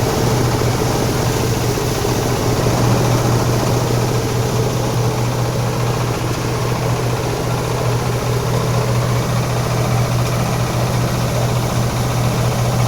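Plywood and veneer waste grinding machine running steadily: a loud, constant mechanical hum with a dense, even noise over it.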